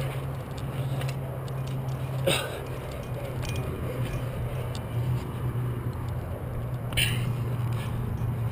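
Climber's short breaths and hands scuffing on rough rock, over a steady low hum and wind and handling noise on a body-worn camera. Two short, sharp sounds stand out, about two seconds in and about seven seconds in.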